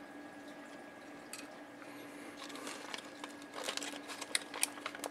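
Quiet room with a steady faint hum, and from about halfway through, light clicks and rustles of hands handling a small circuit board in its vise.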